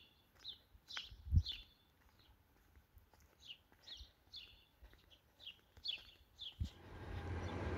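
Small songbirds chirping: short, high chirps about two a second. Near the end, a low rumble of engine noise sets in and holds steady.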